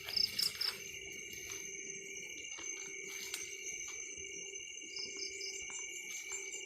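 Night insect chorus, crickets trilling steadily on several high pitches. Twice a quick run of three short, higher chirps sounds over it, just after the start and again about five seconds in.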